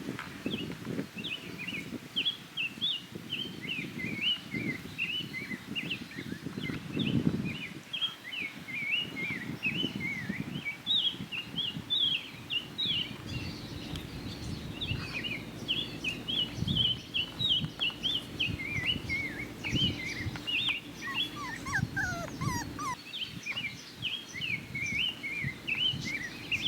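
Five-week-old mini Bernedoodle puppies whining, a steady run of short high-pitched squeaks, over low rustling and bumping from handling and movement.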